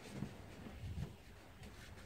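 Faint rubbing and a few soft knocks of a cloth rag wiping the engine's oil filter mounting face clean, where the new filter's seal will sit.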